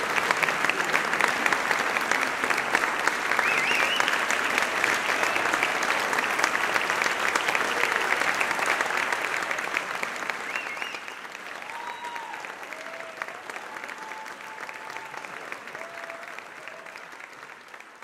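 Concert audience applauding, dense clapping with a few voices calling out; it fades out over the last several seconds.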